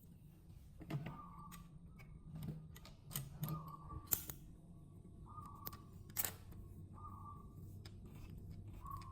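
High-speed sewing machine run in short bursts: several brief high whines, each about half a second, with a few sharp clicks in between, over a low steady hum.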